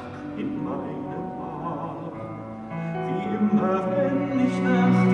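Musical-theatre orchestra playing sustained chords, growing louder about three seconds in.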